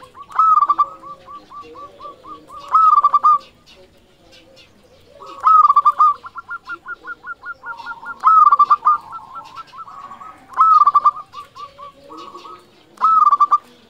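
Zebra dove (perkutut) singing its cooing song: six loud rolling phrases, about one every two and a half seconds, each trailing off into a quick run of short repeated coos.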